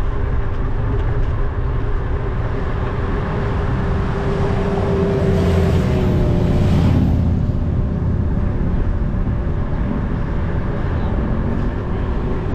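Wind rumble on the microphone and road and traffic noise while riding a bicycle down a city street. About halfway through, two motorcycles pass the other way, their engines swelling and then dropping slightly in pitch as they go by.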